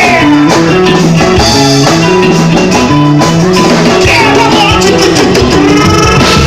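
Pagode music playing loudly: a stepping bass line under gliding melody lines, with steady percussion.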